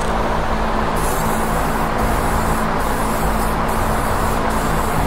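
Aerosol spray-paint can hissing in repeated passes over a guitar body. The hiss comes in about a second in and breaks off briefly about once a second between strokes, over a steady low hum.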